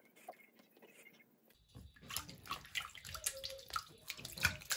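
Water splashing and sloshing in a bathroom sink basin as hands and a foot are rubbed in it to wash off temporary tattoos. Almost silent at first, the irregular splashing starts about two seconds in.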